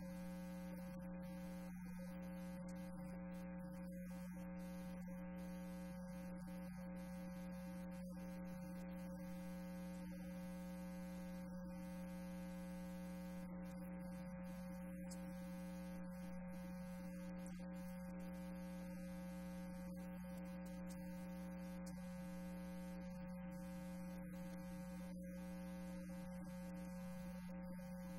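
Steady electrical hum: a low buzzing tone with several higher steady tones stacked above it, unchanging.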